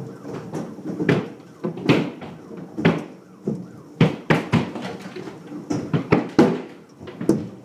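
Hailstones striking a hard surface: irregular sharp knocks and thuds, roughly one or two a second, over a steady rumble.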